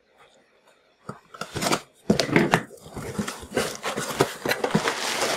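Cardboard box flaps being folded back and inflated plastic air-pillow packing rustling and crinkling under a hand, starting about a second in as a run of irregular crackles and scrapes.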